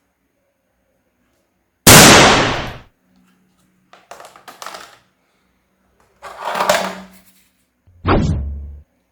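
A series of sudden bangs: a very loud one about two seconds in that fades over about a second, a few light clicks, then two more bangs near the end.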